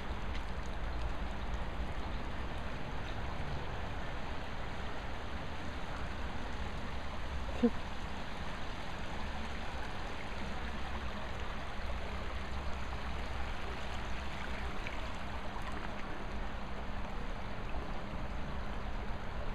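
Rainwater runoff flowing in a shallow sheet down a tarmac lane, a steady rushing and trickling of water. A single brief sharp sound stands out about eight seconds in.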